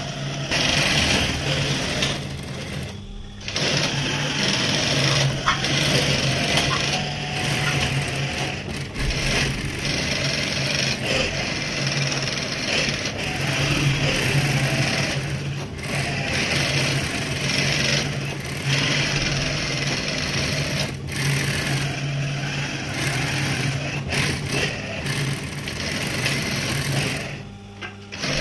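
Industrial sewing machine stitching glove fabric, its motor humming steadily under the fast rattle of the needle. It runs in long stretches, with brief stops about three seconds in and again near the end.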